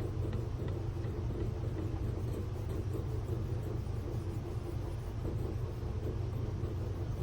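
Shear-sharpening machine running steadily, a continuous low motor rumble, while the ride line of a nicked curved grooming shear blade is worked on it.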